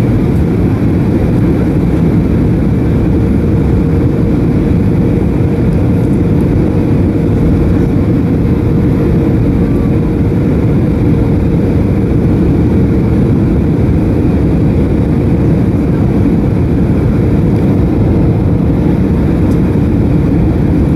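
Steady cabin noise of an Airbus A320neo in flight, heard from inside the passenger cabin: a constant engine drone and rushing airflow with a steady low hum running through it.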